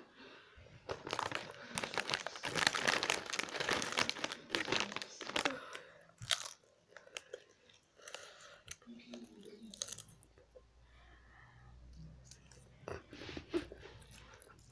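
A foil crisp packet crinkling close up as a hand works in it, mixed with crisps being crunched and chewed through a gum shield. It is densest and loudest in the first few seconds, then thins to quieter chewing and occasional crackles.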